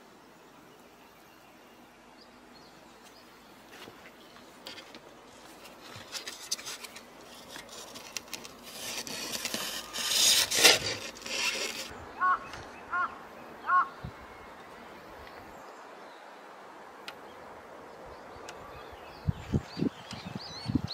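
Rustling and rubbing as a cat's fur brushes against the camera microphone, building up and loudest about ten seconds in, then stopping. Three short chirps follow, and a few soft thumps near the end.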